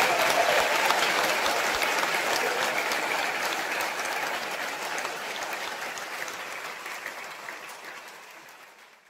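Live audience applauding, fading gradually away to silence by the end.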